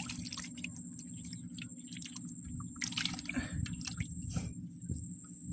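Water splashing in short, scattered bursts over a steady low hum, as fish are handled in the water.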